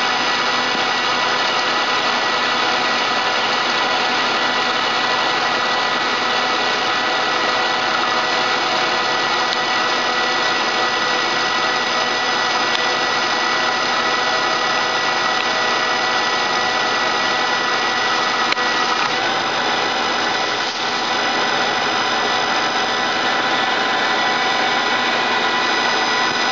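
ACER 1760 geared-head engine lathe running steadily under a cut, its tool turning the hardened Stellite tip of a forging punch (mid to high 50s Rockwell C): an even machine noise with several steady whining tones, which shift slightly about two-thirds of the way through.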